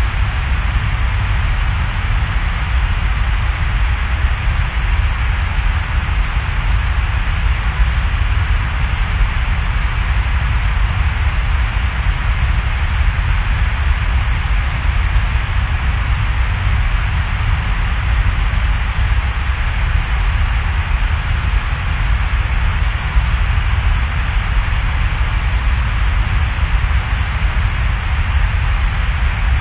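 Steady, loud rain-like hiss over a deep rumble, even and unchanging, with no music or voice.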